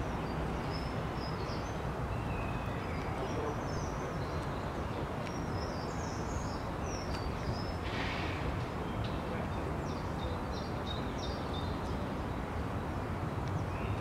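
Outdoor park ambience: a steady low background rumble with small birds chirping and twittering on and off throughout, and a brief hiss about eight seconds in.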